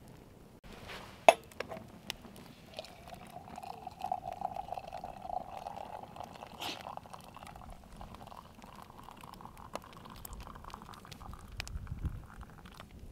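A hot drink poured from an enamel coffee pot into an enamel mug: a steady pouring sound whose pitch slowly rises as the mug fills, stopping near the end. A sharp clink comes about a second in.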